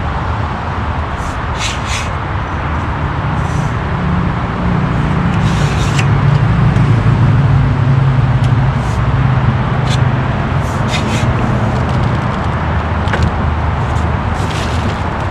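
Steady roar of nearby freeway traffic, with a deeper rumble swelling in the middle and easing off toward the end. Scattered light clicks and rustles sit on top of it.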